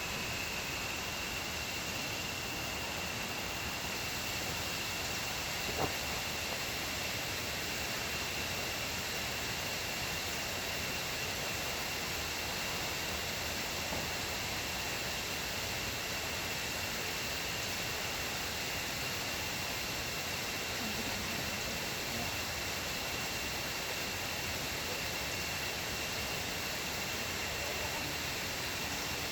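Steady rushing noise, with a continuous high-pitched insect drone over it and a single click about six seconds in.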